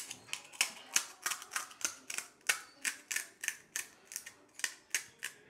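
Crisp fried pani puri shells crackling as a thumb pokes through and breaks open their tops: a run of sharp, crunchy cracks, about four a second.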